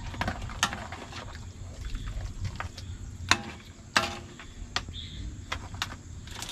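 Metal ladle clinking and scraping against a steel wok and crab shells while stirring crabs in coconut-milk sauce: irregular knocks, the loudest about three and four seconds in, over a steady low rumble.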